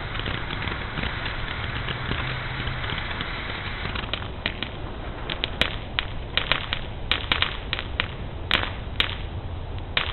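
Consumer fireworks going off: a dense crackling hiss for the first few seconds, then a run of about a dozen sharp, irregular pops.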